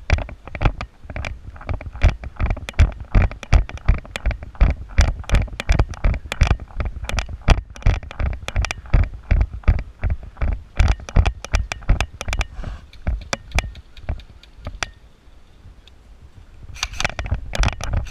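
Irregular clicks and knocks, a few a second, over a low rumbling thump: the noise of an airsoft player moving with gear rattling against a body-worn camera. It eases off briefly near the end, then picks up again.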